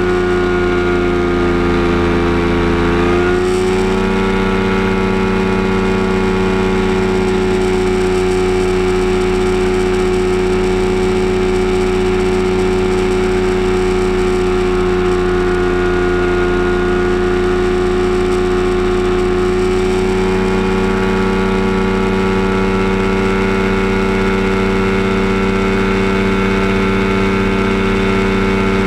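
Kolb Firestar II ultralight's engine and pusher propeller droning steadily in cruise flight, heard from the cockpit. The pitch rises a little about three seconds in and again slightly about twenty seconds in, as the power is eased up.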